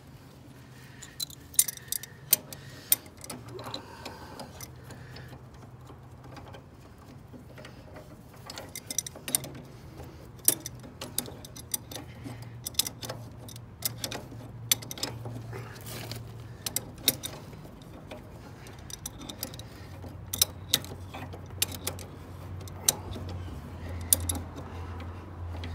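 Ratchet wrench clicking in short, irregular runs as a nut is worked on a ride-on mower's steering kingpin, with clinks of metal tools. A low steady hum sits underneath.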